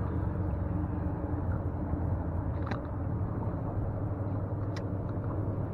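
A motor's steady low hum, with two faint clicks about halfway through.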